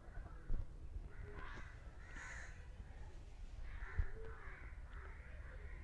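Faint crows cawing in the background: several harsh caws spread across a few seconds.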